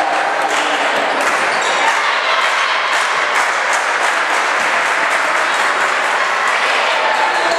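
Crowd noise from spectators in a gymnasium: a steady wash of voices and cheering with many scattered claps and knocks.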